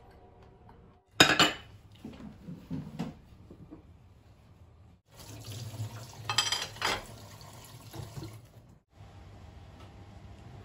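Crockery clattering with a few knocks, then a kitchen tap running into a stainless steel sink as something is rinsed under it, with louder splashing in the middle; quiet room tone near the end.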